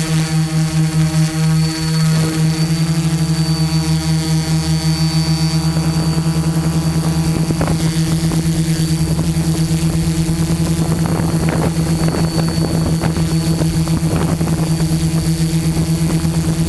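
Quadcopter's brushless motors and propellers running at a hover, a steady hum with a high whine above it and a fast, even pulsing in level, heard close up through the camera mounted on the craft.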